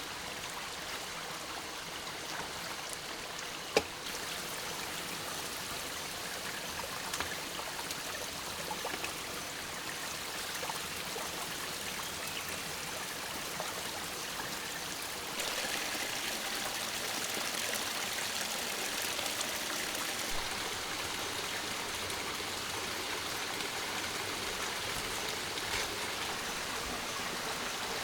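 Steady rushing of water in the rainforest that grows louder about halfway through, with a single sharp click near the start.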